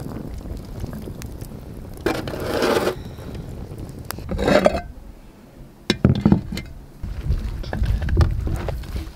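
A string of separate knocks, scrapes and clinks as split firewood is stacked on a round iron fire plate and clay dishes are handled.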